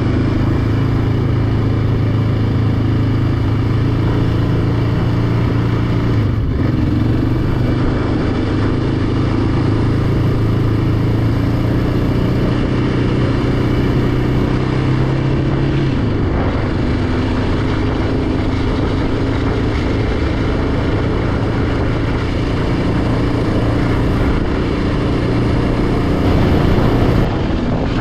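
Yamaha Raptor 700R ATV's single-cylinder engine running steadily while riding. Its note shifts in pitch twice, about a quarter of the way in and just past halfway.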